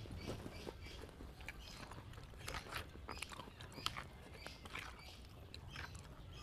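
Close-up chewing of a mouthful of pentol meatballs in sauce, with scattered light clicks of a metal spoon and fork against a plastic plate.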